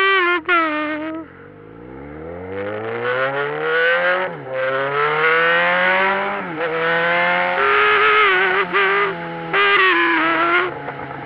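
Motorcycle engine accelerating hard through the gears: its pitch climbs, drops at a shift, climbs again, then holds. Loud, sudden, steady high-pitched tones sound twice at the start and again near the end.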